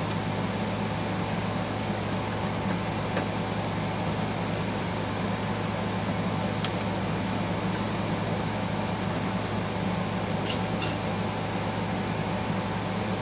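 Steady room hum, with a few faint clicks and two short, sharp clicks about ten seconds in, as small parts of a Singer sewing machine are handled while it is screwed back together.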